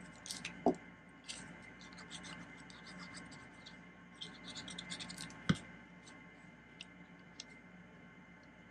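Faint scratching and rustling of paper as liquid glue is run across the back of a piece of printed paper and the piece is handled, with a few light taps and one sharper tap a little past halfway.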